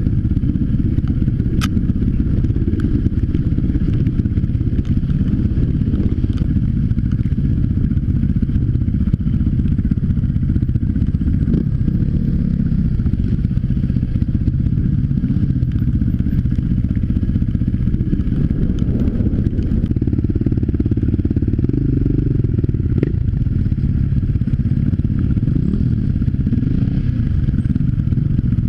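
Dirt bike engine running as it is ridden over a rough, rocky trail, with now and then a sharp click or knock.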